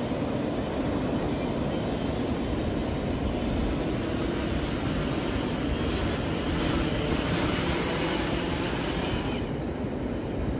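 Rotors of a six-rotor (hexacopter) bait-carrying fishing drone buzzing as it flies in close, growing louder. The rotor noise drops off sharply about a second before the end, as the drone is caught by hand.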